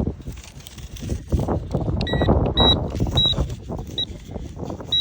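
Handheld metal-detector pinpointer sounding short high beeps, one or two a second, starting about two seconds in as it closes on a buried target. Under them is rough scraping and rustling from digging in hard, dry dirt.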